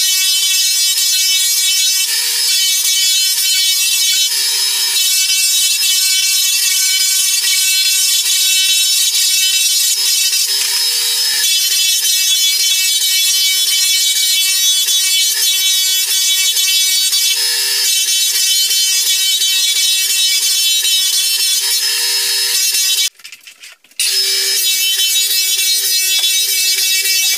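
Floor sander running on old Douglas fir floorboards: a steady high-pitched motor whine over sanding noise. The sanding noise swells briefly every few seconds, and the sound cuts out for about a second near the end.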